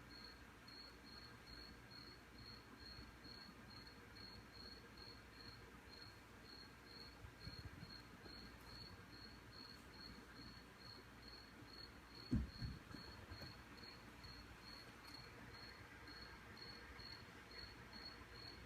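A cricket chirping faintly and steadily, in even pulses about two to three times a second. A dull low thump comes about twelve seconds in.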